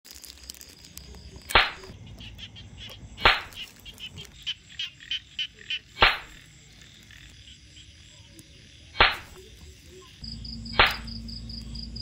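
Frogs calling in wet grass: five loud, short croaks one and a half to three seconds apart, with a run of quieter, quicker calls between them in the middle. A faint, high insect chirring goes on behind.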